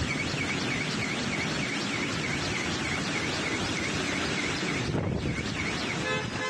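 Storm wind and rain noise with a car alarm chirping over it in a fast repeating pattern, about four chirps a second. The chirping breaks off briefly about five seconds in, and a short steady tone sounds near the end.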